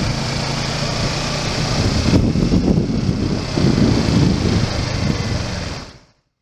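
Motorcycle engine running while the bike is ridden, with wind rushing over the camera microphone. The sound fades out about six seconds in.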